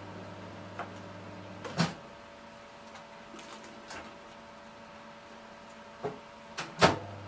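A few clicks and knocks from kitchen items being handled during cooking, a sharp one about two seconds in and the loudest near the end. Under them runs a steady electrical hum that drops away after the first loud knock and comes back after the last.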